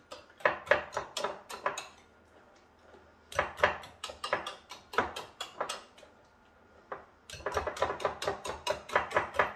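Wire whisk beating cold crème pâtissière straight from the fridge, the wires clattering against the bowl at about five strokes a second in three spells with short pauses between.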